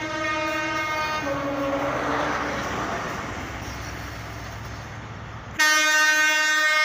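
An Intercity 125 (Class 43 HST) train is heard passing. A two-note horn call, higher then lower, gives way to the diesel power car and coaches running by. Near the end a loud, long horn blast sounds.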